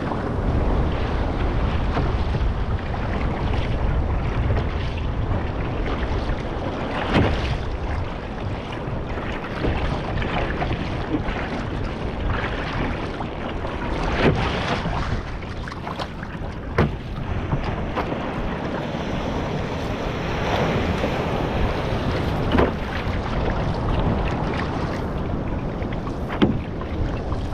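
Ocean water rushing and splashing around a one-person outrigger canoe as it is paddled, with wind buffeting the microphone. A handful of sharper hits stand out from the steady wash.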